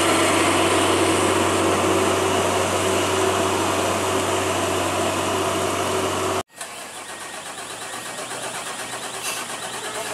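Container truck's diesel engine running hard and steady as it labours up a steep, slippery grade. About six and a half seconds in, it cuts off abruptly and a quieter truck engine takes over, slowly growing louder.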